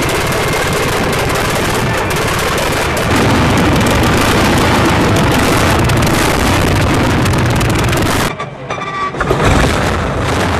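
Fiat S76's 28.5-litre four-cylinder engine running as a loud, rapid stream of sharp explosive firing strokes. About eight seconds in it cuts off abruptly and a different, quieter engine sound takes over.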